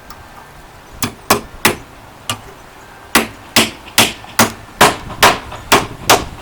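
Hammer blows, about a dozen in all: four uneven strikes, then a steady run of about two a second, fastening a Hog Head rod clamp onto a concrete wall form.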